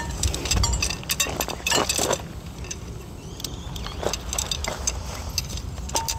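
Fibreglass tent pole sections clicking and clinking against each other as they are handled and fitted together, over a low steady rumble.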